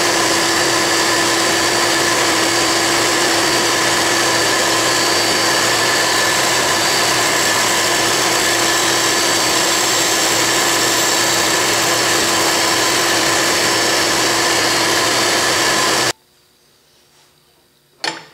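Dumore toolpost grinder and a shop vacuum spark pickup running together while the grinding wheel dresses a lathe live center to a 60-degree point: a loud, steady whine with several held tones. It all cuts off suddenly about sixteen seconds in, and near the end comes a sharp metallic clink.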